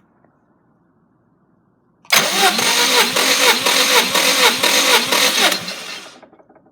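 Subaru EJ205 2.0-litre flat-four engine turned over on its starter motor, with a regular chugging pulse about two and a half times a second. It does not settle into an idle: after about three and a half seconds the sound winds down and stops.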